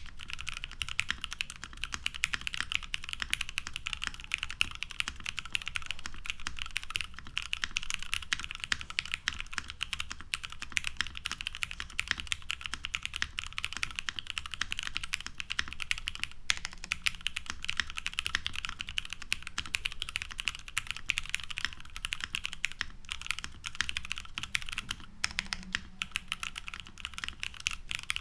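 Continuous fast typing on a mechanical keyboard with lubed vintage Cherry MX Black linear switches in a top-mounted aluminium plate with no foam, under NCR G81-3077 keycaps. Dense keystroke clacks with a few short pauses near the end.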